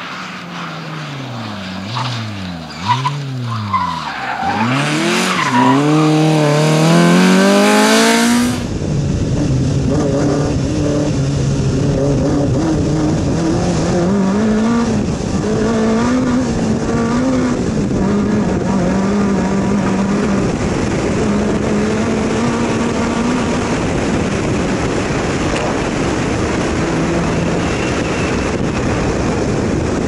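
Rally car engine revving hard, its pitch dropping and rising several times through gear changes, then climbing in one long acceleration. About eight and a half seconds in it cuts to onboard sound of a rally car on a dirt track: the engine runs at high revs, its pitch wavering with the throttle, over a steady roar of tyre and gravel noise.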